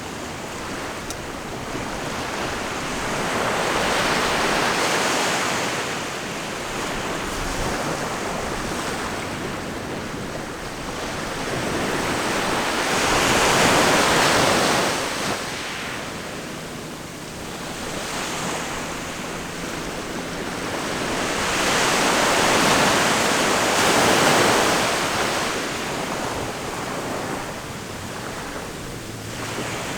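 Ocean surf: waves breaking and washing in three slow swells of hiss about nine seconds apart, each rising and then ebbing away.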